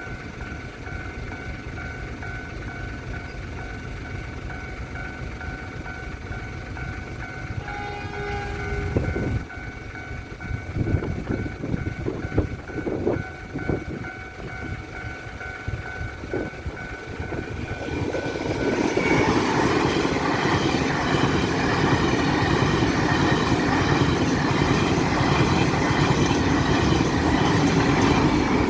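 Level-crossing warning signal ringing steadily over heavy wind noise on the microphone. About eight seconds in there is a short train horn blast, followed by a few wheel knocks. From about eighteen seconds a train passes over the crossing, loud and clattering, until it cuts off near the end.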